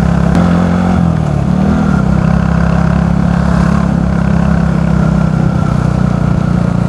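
Motorcycle engine running steadily while riding. About a second in, its note briefly drops and then climbs back, as when the throttle is eased off and opened again.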